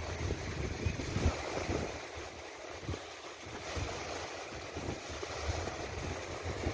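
Wind buffeting the microphone in uneven gusts, over small waves breaking and washing on a lakeshore.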